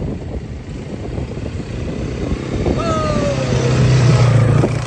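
Quad bike (ATV) engine running, a steady low hum that grows louder a little past halfway and is loudest for about a second and a half near the end.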